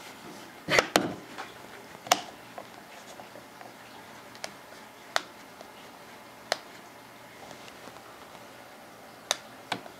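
Scattered sharp clicks and light knocks from a plunge router being handled and switched on the workpiece, its motor never starting: the router has failed to run.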